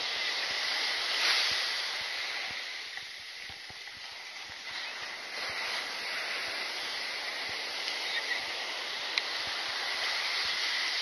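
Ocean surf washing onto a sandy beach: a steady hiss that swells about a second in, eases off a little, then builds again. Scattered light low thumps sit underneath.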